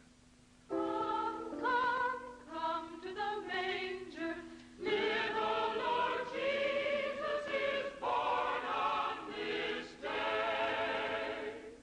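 A choir singing sustained notes in harmony. It comes in about a second in and swells louder about halfway through. A steady low note sits underneath for the first few seconds.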